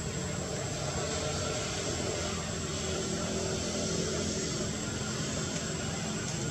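Steady low engine-like hum with a constant high-pitched whine and hiss over it, unchanging throughout.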